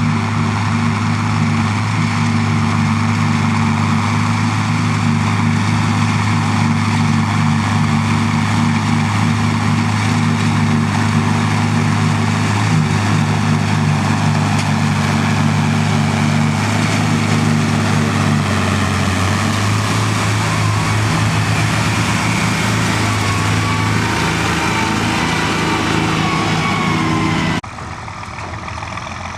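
Farm tractor engine running steadily and loudly, its note shifting about two-thirds of the way through, with a faint whine over it in the later part; the level drops suddenly shortly before the end.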